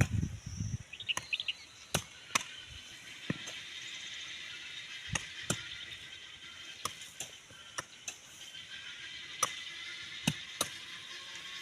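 A digging tool chopping into the ground in sharp, irregular strikes about once a second, with a short bird chirp about a second in.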